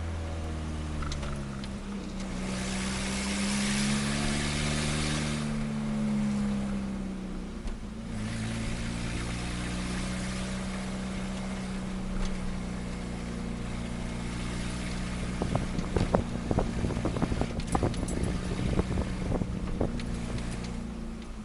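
Turbocharged Nissan Micra engine running at low revs with a leaking exhaust: the turbo has dropped off the manifold and hangs on two loose bolts. A few seconds in the revs rise and fall with a loud hiss of escaping exhaust, and near the end a run of irregular clattering knocks sounds.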